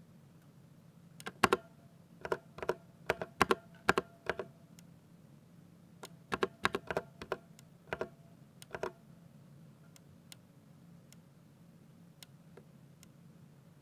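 Typing on a Ducky 60% mechanical keyboard with Cherry MX Speed Silver linear switches: keys clacking in quick bursts of several strokes, then only a few faint, sparse clicks over the last few seconds.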